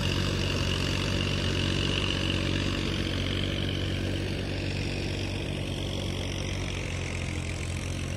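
Sonalika DI 750 tractor's diesel engine running steadily at a distance while pulling a rotary tiller through wet soil.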